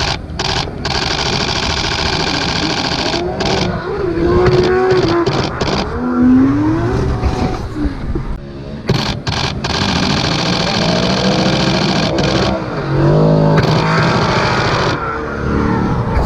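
Drift car engines revving hard, the pitch rising and falling, in short stretches broken by abrupt cuts.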